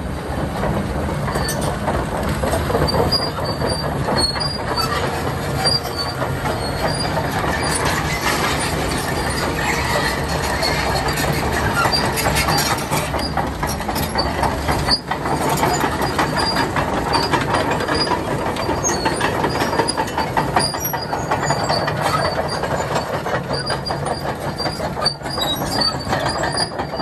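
Caterpillar D6N LGP crawler dozer running and travelling: its diesel engine runs steadily under the clank and squeal of its steel tracks.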